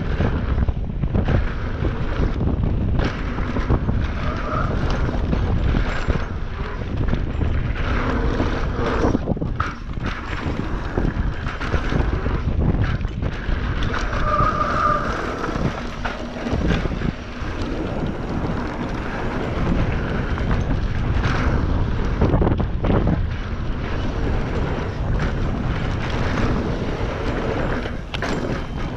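Wind buffeting the microphone of a camera riding along on a fast mountain-bike descent, with scattered rattles and knocks from the bike over rough ground.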